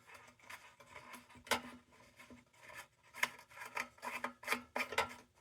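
Light, irregular metal clicks and scrapes as a cap is worked onto a 1930 Dietz No. 2 Blizzard tin lantern.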